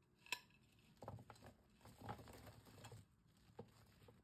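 Faint rustling and a few light clicks and taps: paper and food being handled on a serving plate.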